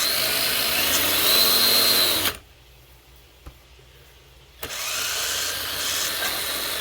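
Traxxas TRX-4 RC crawler's electric motor and drivetrain run under throttle twice, each run a whine rising in pitch, the first cutting off after a couple of seconds. The pinion gear mesh is being tested after adjustment, and it sounds a little better.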